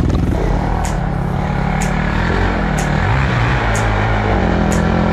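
Quad bike engine running steadily near idle, with a low, even drone. Background music with a light beat about once a second plays over it.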